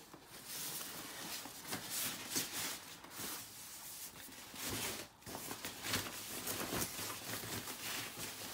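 Thin plastic protective wrap rustling and crinkling in uneven bursts as it is pulled off a monitor and out of its polystyrene foam packing tray.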